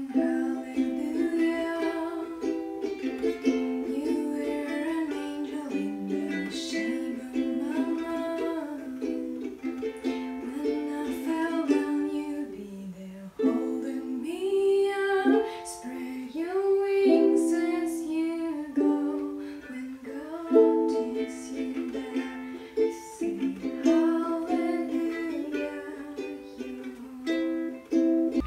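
A ukulele being played, a tune of chords and single notes on nylon strings, with the close sound of a small room.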